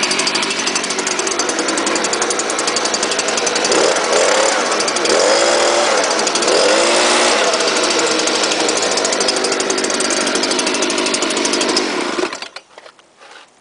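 Stihl BG 86 two-stroke leaf blower running steadily at speed, warmed up and running normally after a cold start, blowing air across the ground. It shuts off about twelve seconds in.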